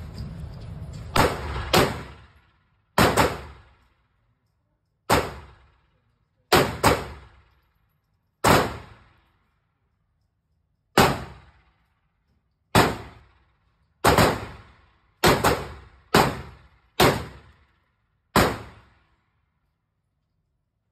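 Canik TTI Combat 9 mm pistol firing about thirteen single shots at an uneven pace, each a sharp crack with a short echo from the indoor range.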